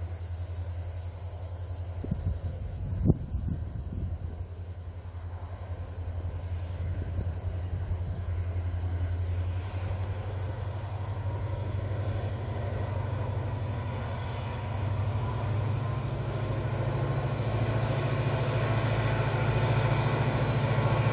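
Diesel locomotive hauling passenger cars as it approaches, its engine a low steady drone that grows louder toward the end. Crickets chirp in repeated pulses, and there is a single sharp thump about three seconds in.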